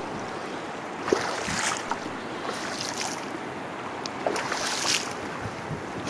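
Steady wind and shallow-surf noise on a tidal beach. Three short bursts of splashing in the shallow water come about one, two and a half, and four and a half seconds in.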